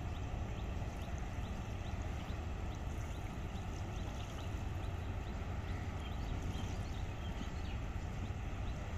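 Steady low rumble of outdoor background noise by a river, with a faint regular ticking about three times a second that fades out about halfway through.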